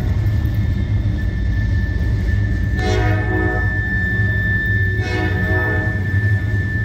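Loaded gravel hopper cars rolling past with a steady low rumble and clatter, and a thin steady high squeal from the wheels from about a second in. The locomotive's horn sounds in the distance in two short blasts about two seconds apart, as a crossing warning.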